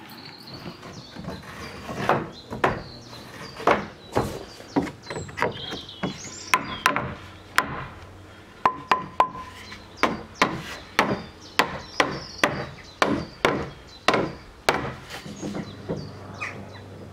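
Interlocking timber log-cabin wall planks being knocked down into place: a long run of sharp wooden knocks at an uneven pace, coming closer together in the middle.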